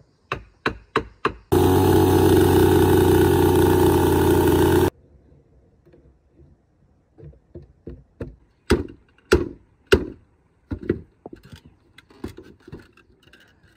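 A few sharp knocks of a blade on wood. Then a petrol chainsaw runs at steady high speed for about three seconds, cut off abruptly. After that comes a string of irregular wooden knocks and taps as bamboo and wooden pieces are struck and fitted together.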